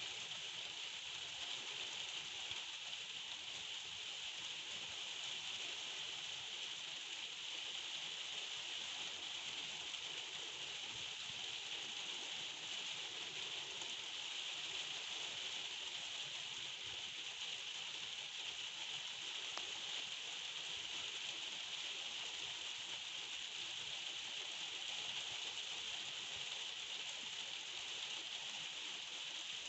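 Heavy thunderstorm rain falling: a steady, even hiss that does not let up.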